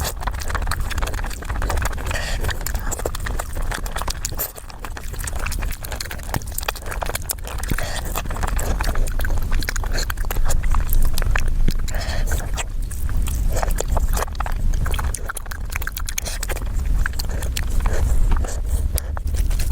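Close-miked chewing and biting of food, a dense run of irregular crackling clicks and wet mouth smacks over a low rumble.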